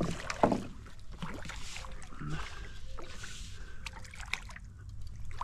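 Water lapping against a small fishing boat, with a few scattered small knocks and clicks.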